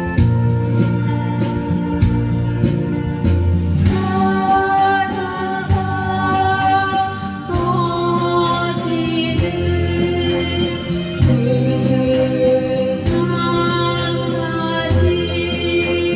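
A song with a steady ticking beat: an instrumental backing plays, then a singer comes in about four seconds in and sings long held notes over it.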